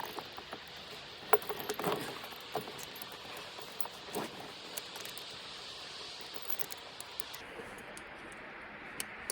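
Heavy steel tire chains on a backhoe tire clinking and rattling now and then as they are pulled tight and fastened by hand, over a steady hiss.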